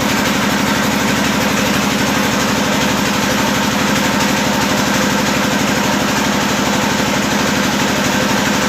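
A small engine running steadily at an even speed, with a fast regular pulse and no change in pitch or level.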